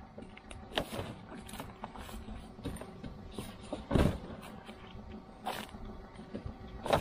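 Gear being packed into a car: scattered knocks, rattles and clatter, with a heavier thump about four seconds in and another near the end.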